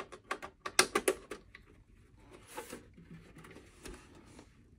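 Clicks and taps of hands handling a Synology DS1522+ NAS enclosure as it is turned over, a quick run of them in the first second or so, then a short rustle and a few soft knocks.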